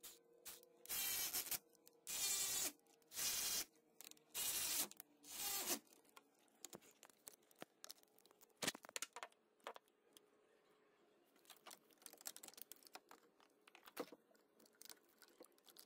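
A cordless power driver run in five short bursts of about half a second each, spinning in the mounting bolts of replacement electric cooling fans; after that come scattered light clicks and rattles of tools and parts being handled.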